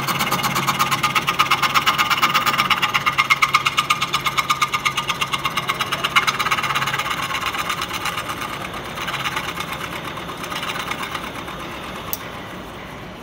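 Scroll saw running, its blade chattering rapidly up and down as it cuts a circle through a thick wooden block. The cutting sound grows fainter in the second half, and there is a sharp click near the end.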